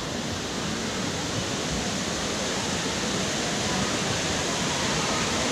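A waterfall running full with high water: a steady rush of falling water, growing slightly louder.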